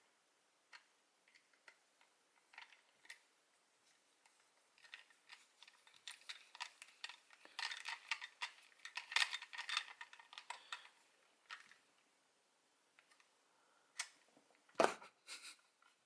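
A small screwdriver working a small screw into a plastic toy part: faint scraping and clicking, busiest through the middle, with a few sharper plastic clicks near the end.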